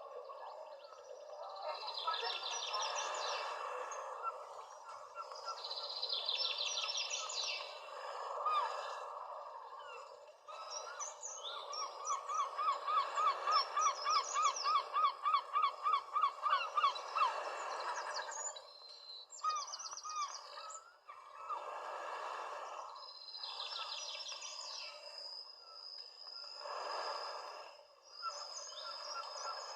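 Birds calling and singing over a steady background hush, with several short high trills. The loudest part is a long run of quick rising chirps, about three a second, through the middle.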